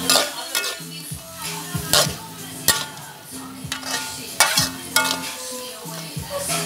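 A metal spatula scraping and clanking against an aluminium wok, stirring crickets frying with chillies and lemongrass. There are about half a dozen sharp clanks over a light sizzle.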